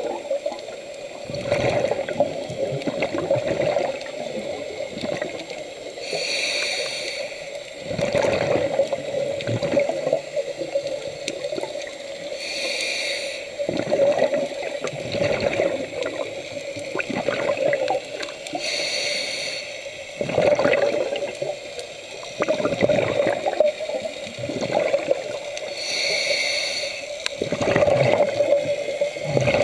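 Scuba diver breathing through a regulator underwater: a hissing inhale about every six to seven seconds, and bursts of exhaled bubbles gurgling in between, over a steady hum.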